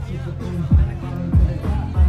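Background music with a heavy beat: deep bass hits that drop in pitch, a little under twice a second.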